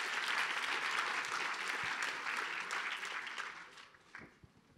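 A large audience applauding, the clapping dying away over the last second or so.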